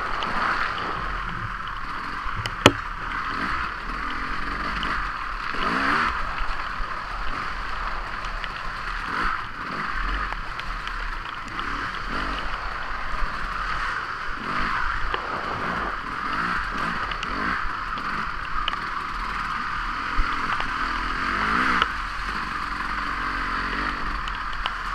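Dirt bike engine under way on a rough trail, its revs rising and falling several times, with rattling and scraping from the bike over the bumps. A single sharp knock about two and a half seconds in.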